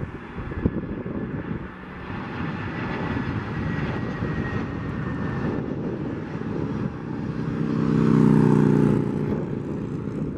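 Airbus A320-family jet airliner on final approach with its gear down, its engines running at approach power: a steady jet rush with a high whine, building to its loudest about eight seconds in as a low buzzing drone while the plane passes closest, then easing.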